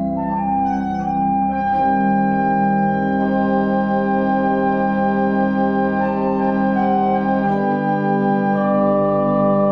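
Pipe organ played four-hands: full sustained chords over a deep bass, changing to new chords about two seconds in and again near the end.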